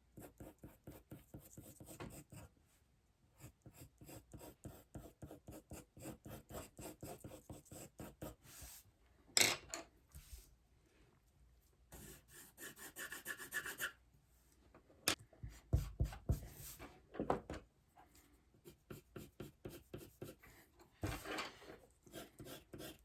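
Pencil strokes scratching across sketchpad paper, quick back-and-forth shading strokes several a second, with a few sharper, louder strokes now and then.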